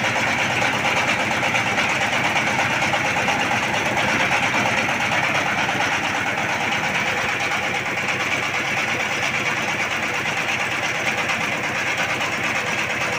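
Single-cylinder S1115 diesel engine running steadily under load, belt-driving a grain mill. The mill's fast mechanical rattle blends with the engine's running.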